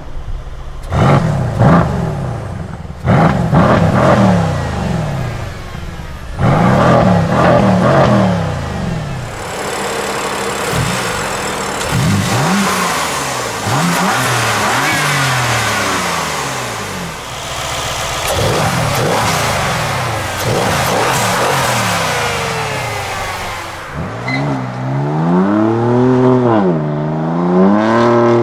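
BMW M4 and Mercedes-AMG C63 S engines revving: a twin-turbo straight-six and a twin-turbo V8. Sharp throttle blips come one after another in the first several seconds, then a long stretch of continuous hard revving, then slower rises and falls in pitch near the end.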